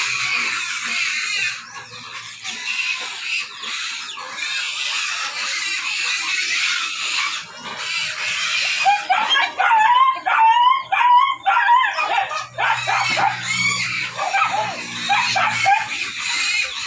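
Animal calls: a dense chorus of high chirping, then from about halfway a quick run of repeated high, whining squeals that rise and fall in pitch.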